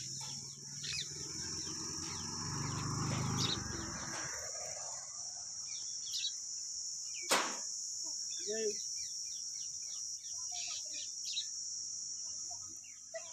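Steady high-pitched insect drone with birds chirping now and then. A low rumbling noise runs through the first four seconds, and a single sharp click comes about seven seconds in.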